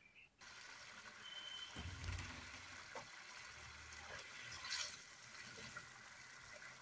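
Tomato masala and water simmering and bubbling in a metal kadai over a wood fire, stirred with a wooden spatula. There is a dull low bump about two seconds in.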